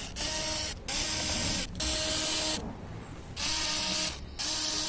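Small electric screwdriver whirring in short bursts of just under a second, about five times with a longer pause midway, as it backs out the laptop's back-cover screws.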